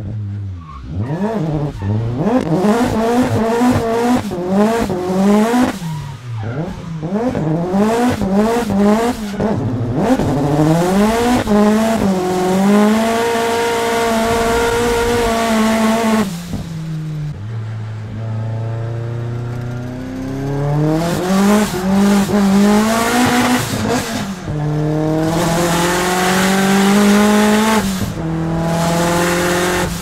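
Nissan S13's 600 whp SR20 four-cylinder engine revving hard in quick rising sweeps, then held at high revs for several seconds at a time while the rear tyres screech in a drift. The revs drop and build again twice.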